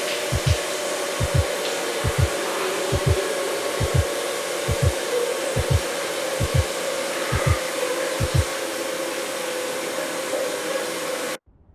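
Shower water spraying steadily, with a low double-thump heartbeat about once a second, ten beats that stop about three seconds before the end. The shower cuts off suddenly just before the end.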